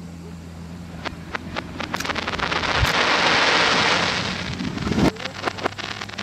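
Aerial fireworks heard played backwards: scattered crackles and a hissing swell that peaks a few seconds in. About five seconds in, a loud shell burst builds up and then cuts off abruptly. A steady low hum runs underneath.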